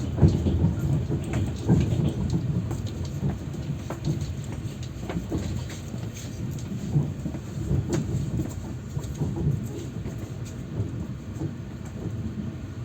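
Passenger train running, heard from inside the carriage: a steady low rumble with irregular clatter and knocks.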